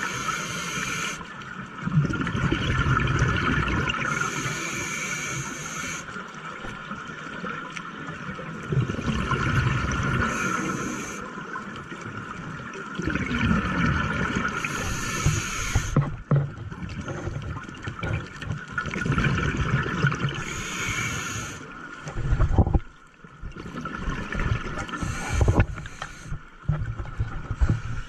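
Scuba diver breathing through a regulator underwater. A sharp hiss of inhaled air and a rumble of exhaled bubbles alternate, repeating about every five seconds.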